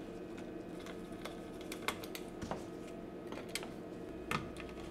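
Small, irregular clicks and taps of a precision screwdriver and tweezers working the screws out of a graphics card's circuit board, over a faint steady hum.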